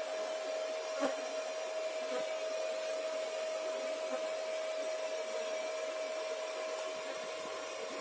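Homemade bee vacuum's motor running steadily: a constant whine over an airy rush of suction.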